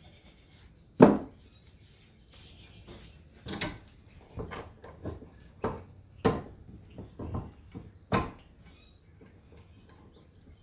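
Knocks and clanks from handling an electric motor's steel stator and its copper windings on a steel bench vise. One sharp knock about a second in, then a string of lighter knocks and clicks.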